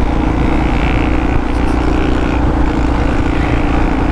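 Yamaha XT 600E's single-cylinder four-stroke engine running steadily through an old aftermarket Coyote exhaust while riding, with wind rumbling on the camera's microphone.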